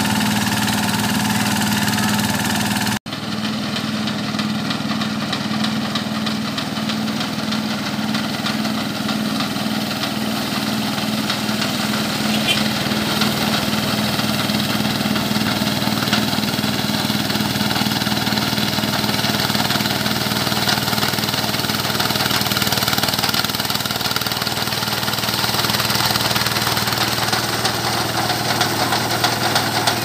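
Mini rice combine harvester's 11.5 hp Kubota single-cylinder diesel engine running steadily while the machine cuts and threshes rice. The sound drops out for an instant about three seconds in, then carries on the same.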